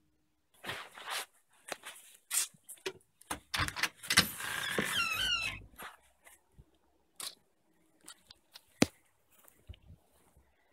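Footsteps and handling noises: scattered clicks and rustles, with a louder scraping stretch about four seconds in that carries a short, repeated squeak.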